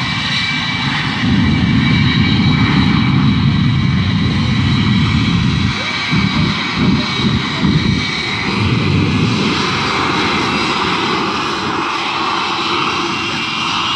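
Jet engines on a jet-powered semi truck running, loud and continuous, with a steady high turbine whine over a deep rumble. The rumble pulses unevenly for a few seconds in the middle.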